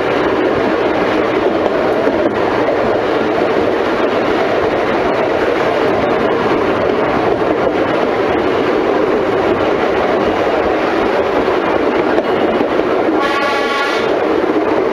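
Narrow-gauge train running steadily along new, not yet ballasted track: a continuous noise of wheels on rail. About 13 seconds in, the locomotive gives one short warning blast of under a second.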